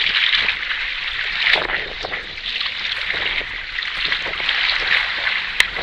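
Water washing and lapping, with wind noise on the microphone. A sharp click sounds just before the end.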